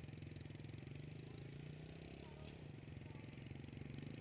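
Motorcycle engine idling steadily close by.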